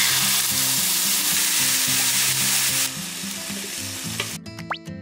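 Maitake mushrooms and canned tuna sizzling in a hot frying pan, loud at first, then quieter about three seconds in, and stopping about four seconds in.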